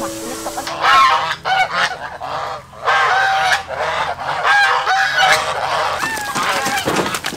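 A flock of domestic geese honking loudly, many calls overlapping. Near the end comes a scuffle of flapping wings as the geese scatter from someone grabbing at them.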